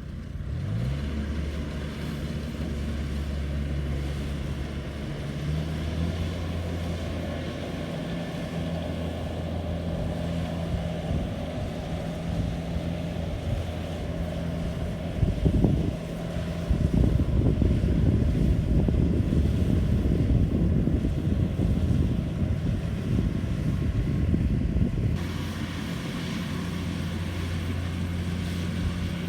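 Engine of a Kubota rice harvester running steadily, its note rising in the first second. A louder rushing noise covers it for several seconds in the middle, after which the steady engine hum is plain again.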